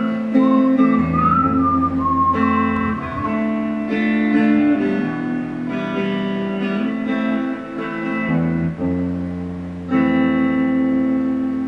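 Telecaster-style electric guitar playing the song's closing chords, each ringing on, with a whistled melody over the first two seconds; a last chord comes in about ten seconds in and rings out, fading.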